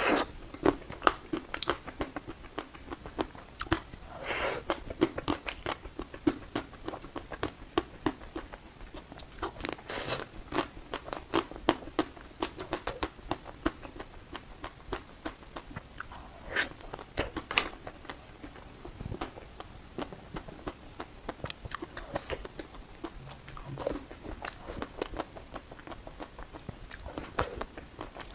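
Close-up crunching and chewing of crispy ice cream: many quick crackling clicks, with a few longer, louder crunching bites spread through.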